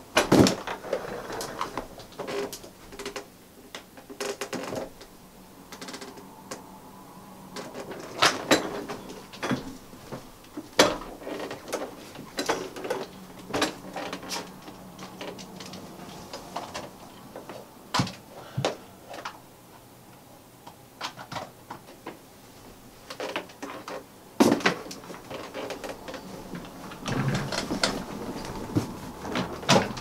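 Irregular clicks, knocks and rattles of things being handled and moved about, a few seconds apart, over a faint low hum. The loudest knocks come about half a second in and near 11 and 24 seconds in.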